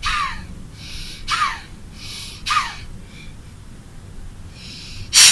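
Kapalbhati breathing: sharp, forceful exhalations blown out through the nose, each ending in a short falling tone, with a softer inhale before each one. Three come about a second apart, then after a pause of about two seconds a fourth, the loudest, comes near the end.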